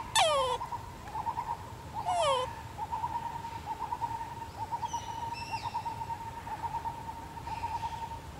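Baby macaque giving two short, falling whimper-like cries about two seconds apart, each dropping in pitch over about half a second, over a steady high drone.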